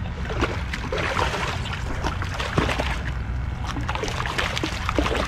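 Hooked redfish splashing and thrashing at the water's surface beside a kayak, in a rapid, irregular run of splashes.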